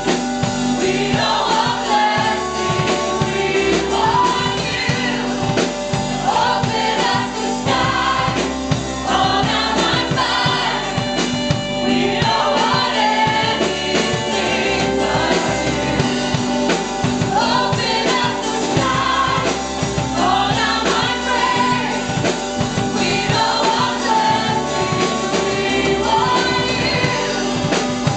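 A choir singing a gospel-style worship song with a backing band and a steady drum beat.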